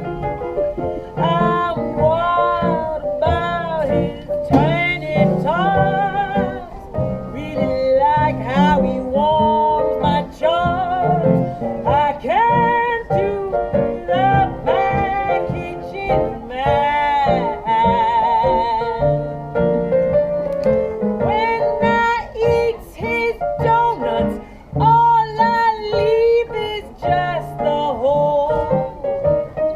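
A woman singing a classic blues song with heavy vibrato, accompanied by piano.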